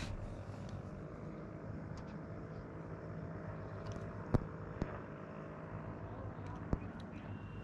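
Steady drone of a distant engine, with a few faint clicks and taps about four and a half seconds in and again near seven seconds.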